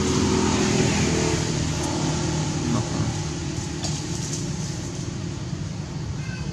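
Motor vehicle engine running, loudest in the first few seconds and then slowly fading.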